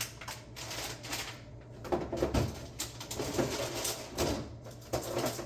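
Food containers and trash being handled while leftovers are thrown away: a rustling hiss with irregular knocks and clatter, the loudest knocks about two seconds in and again near the end.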